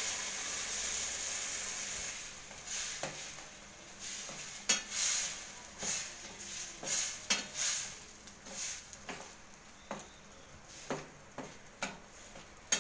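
Brinjal curry sizzling in a hot steel pan just after water is poured in, the hiss fading over the first couple of seconds. Then a slotted steel spatula stirs and scrapes through the curry in repeated strokes, about one every second, over a faint simmer.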